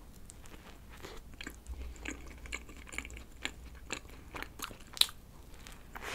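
Close-miked biting and chewing of a soft bread bun topped with cream and rice cake and filled with red bean: a stream of small mouth clicks and soft chewing noises, with one sharper click about five seconds in.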